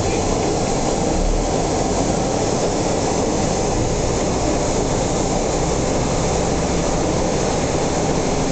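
Steady engine and road rumble of a city bus, heard from inside the passenger cabin, running evenly throughout.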